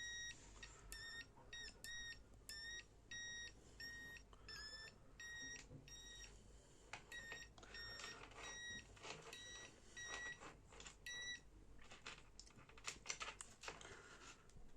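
Small electronic bike-horn buzzer beeping in a steady pulse of high tones, about three beeps every two seconds, which stop about eleven seconds in. Scattered faint clicks follow.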